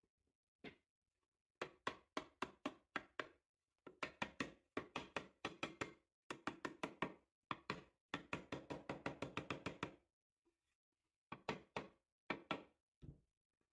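Quick runs of light wooden knocks and taps, several a second, in bursts with short pauses, as hands work the lid and sides of a small wooden box.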